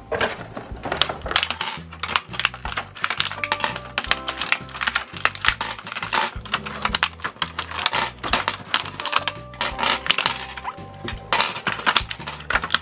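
Plastic game pieces being popped out of a clear plastic blister tray: crackling plastic packaging and many quick, irregular clicks, over background music.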